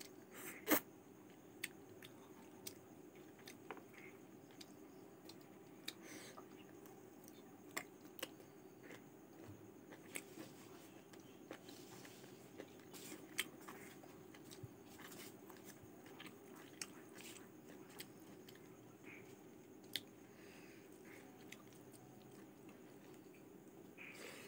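A person eating by hand: chewing and biting boiled chicken and rice, with scattered short sharp clicks and smacks, the loudest about a second in, over a faint steady hum.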